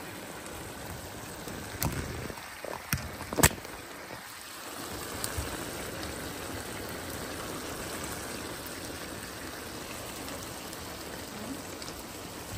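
Igado stew simmering in a skillet, its sauce bubbling and sizzling with a steady crackling hiss. A few sharp clicks come between about two and three and a half seconds in, the loudest near three and a half seconds.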